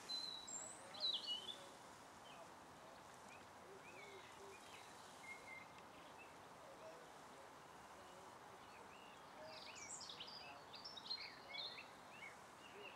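Small birds chirping and singing faintly over a quiet outdoor hush, with a burst of song about a second in and a busier spell of chirps near the end.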